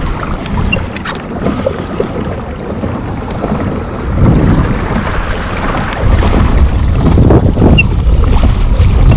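Wind buffeting the microphone over water splashing and lapping around a kayak, with the wind rumble growing louder about six seconds in. A couple of light clicks are heard.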